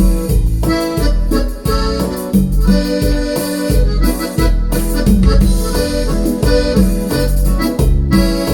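Yamaha Genos arranger keyboard playing a cumbia norteña accompaniment style, with a steady bass-and-drum beat under keyboard chords and melody.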